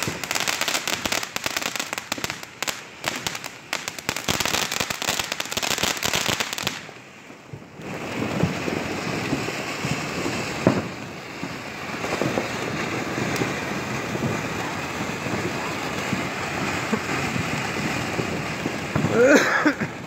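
Ground fountain fireworks spraying sparks, with a dense rapid crackling for the first several seconds, a brief lull, then a steadier hissing crackle with an occasional sharper pop.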